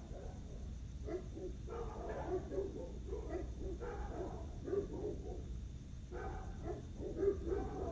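A dog barking in quick runs of short barks, several a second, with short pauses between the runs.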